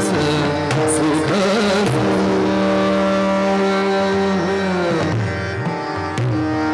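Live Hindustani classical vocal music: a male singer holds long notes and glides between pitches over a tanpura drone, with harmonium following the melody and tabla accompaniment, a few sharp drum strokes near the start.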